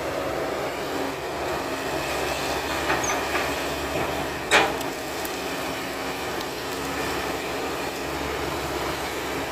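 Hydraulic excavator's diesel engine running steadily as the machine works its bucket on a felled coconut palm, with one sharp knock about halfway through.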